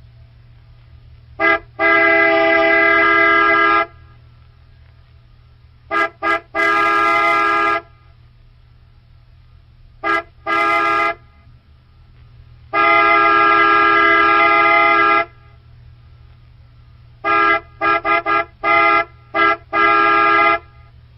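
Car horn honking in an irregular run of short toots and held blasts of two to three seconds, with a quick string of short beeps near the end. A steady low hum runs under it.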